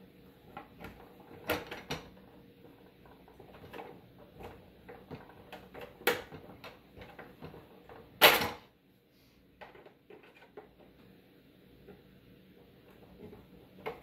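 Small clicks and knocks of the plastic ice maker unit and its screws being handled and fitted by hand, with one loud knock a little past halfway.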